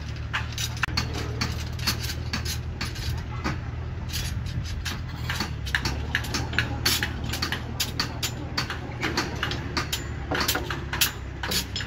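Irregular sharp metallic clinks and ticks of steel reinforcing bars knocking together as they are handled and tied, over the steady low hum of an engine running.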